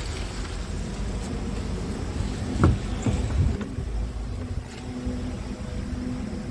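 A steady low rumble, with a dull thump about two and a half seconds in and a softer one a moment later.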